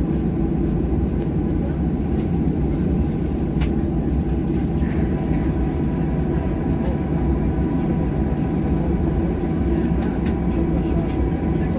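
Steady cabin noise of a Boeing 737-800 taxiing, its CFM56 engines at idle: a low rumble with a faint steady whine over it.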